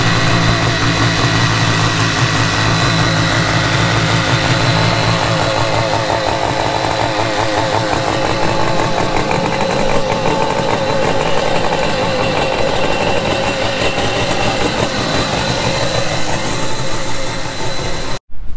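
Two-stroke jet ski engine running at idle on its trailer with a garden-hose flush kit hooked up, rinsing salt water out of the engine after an ocean ride. The sound cuts off suddenly near the end.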